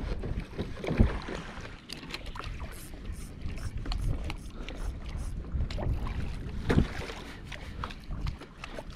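Choppy sea water lapping and slapping against the plastic hull of a Hobie Revolution 13 kayak. Two dull knocks come through, about a second in and again near seven seconds in.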